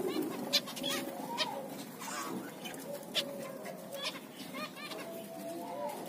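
A small flock of zebra finches calling: about ten short calls from several birds at irregular intervals.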